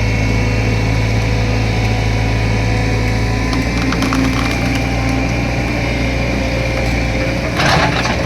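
Diesel engine of a heavy earth-moving machine running steadily with a deep, even hum. A louder rushing burst comes near the end.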